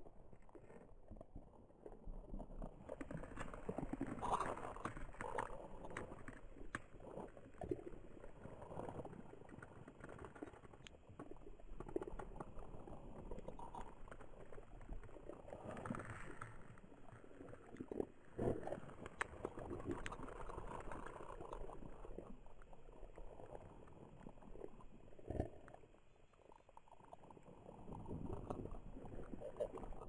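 Amplified pond-water recording: faint, irregular crackling and gurgling, with scattered sharp clicks and a quieter stretch near the end.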